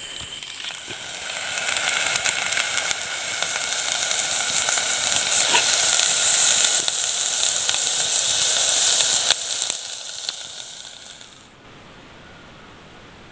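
Meat frying in a metal pot: a dense crackling sizzle that builds over the first couple of seconds. It cuts off about eleven and a half seconds in, leaving a softer steady hiss.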